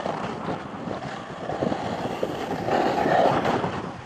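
Splitboard sliding over snow, a rough scraping hiss with wind buffeting the camera's microphone, swelling briefly about three seconds in.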